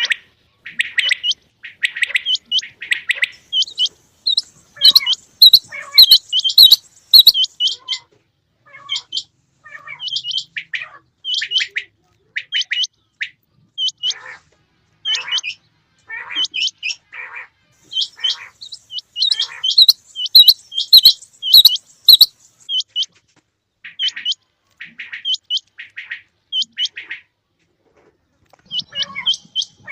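Quail calling over and over in quick series: short, sharp high notes mixed with lower, rougher calls, with a short lull near the end.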